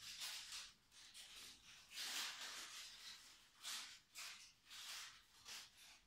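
Faint rustling of dry grass and fibre nesting material as a canary shuffles and flaps its wings in the nest pan, shaping the nest: a series of short scratchy rustles, the longest about two seconds in. No singing.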